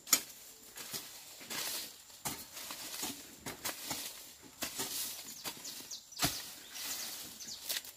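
Hand hoe chopping and scraping through weeds and soil, with irregular strikes and scrapes every half second or so. The sharpest strikes come just after the start and about six seconds in.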